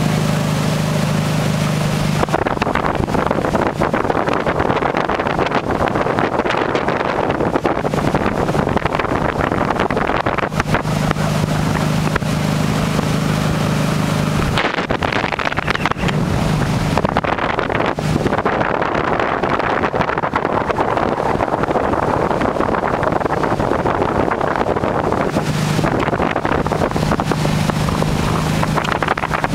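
Towing motorboat's engine running steadily at speed, its low drone coming through in stretches under heavy wind buffeting on the microphone and the rush of water.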